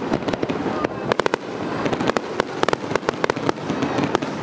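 Aerial fireworks going off in quick succession: many sharp bangs and crackles, several a second, over a continuous rumble of further bursts.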